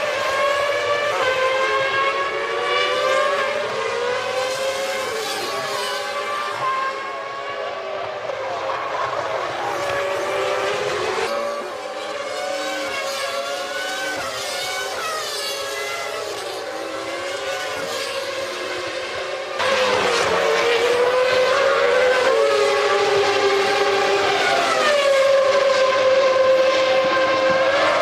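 Several 1997 Formula One car engines at high revs, their pitch stepping up through gear changes and dropping on the downshifts, more than one car heard at once. The sound jumps louder about twenty seconds in.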